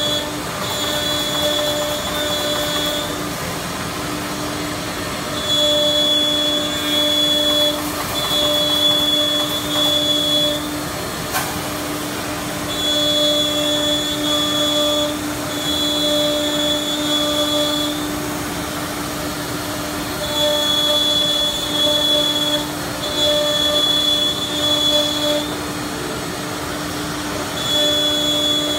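SEMAC SM-1325A4 four-head CNC router's spindles running with a steady hum. A louder high-pitched whine comes and goes in stretches of one to three seconds as the bits cut into a wood panel.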